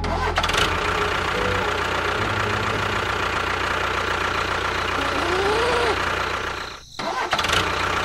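Small motor of a miniature DIY bulldozer running steadily, dropping out briefly near the end.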